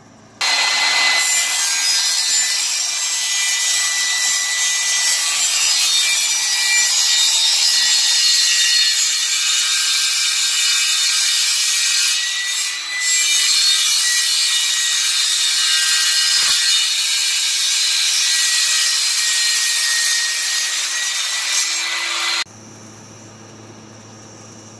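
Table saw running and cutting plastic sheeting: a loud, steady hiss with a thin whistle, dipping briefly about halfway through. It cuts off abruptly about 22 seconds in, leaving only a quiet steady background.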